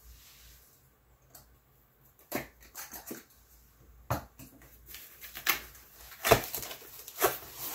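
Packaging being handled and unwrapped from a graded comic slab: plastic rustling and crinkling with sharp clicks and knocks. It starts sparse and gets busier about two seconds in.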